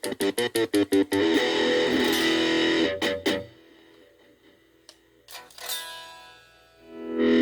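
Gaban Les Paul–type electric guitar played through a VOX Soundbox Mini amp: a fast run of picked notes, then a chord left ringing for a couple of seconds. After a short pause with a few faint clicks, a loud chord is struck near the end.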